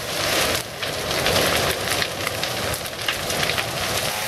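Forest fire burning through standing trees: a steady rush of flame with many quick crackles and pops of burning wood.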